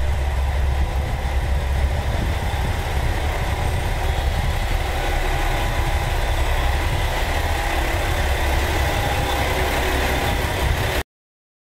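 Diesel railcar's underfloor engine idling steadily, a low, even rumble with a faint steady hum above it; the sound cuts off suddenly near the end.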